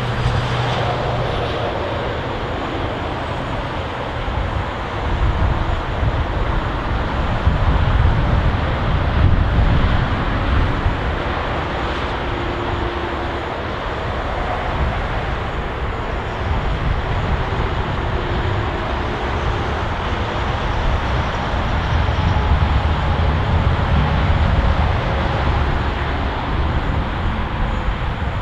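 Steady road traffic noise from a busy city road, with a strong, uneven low rumble.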